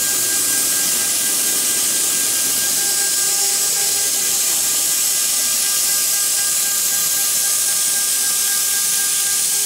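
CNC router spindle running at high speed while its bit carves a relief pattern into a wood board: a steady high hiss of cutting with a faint steady whine underneath.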